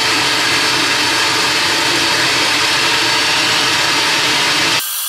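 Cordless random orbital sander running against slate coasters, with a vacuum cleaner hooked to it for dust extraction running at the same time: a loud, steady whir. The coasters' failed engraving and paint are being sanded off so they can be refinished and re-engraved. Near the end the sound abruptly thins to a high hiss.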